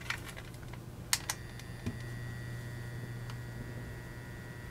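A few light clicks and taps as a soldering gun is brought onto a battery terminal, then about a second and a half in a faint steady high-pitched whine sets in as the gun is switched on and heats the joint, over a low steady hum.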